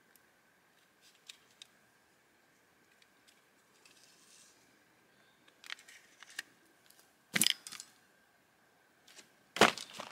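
Small clicks and knocks of a hard-plastic yabby bait bomb being handled and loaded with raw chicken. In the second half come two loud, sharp plastic cracks, about two seconds apart, as the container is snapped shut.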